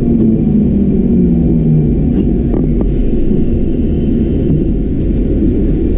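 Inside the cab of an 81-740/741 Rusich metro train pulling into a station: the low hum of the traction drive falls slightly in pitch and fades about two seconds in, leaving a steady rumble of the wheels on the rails.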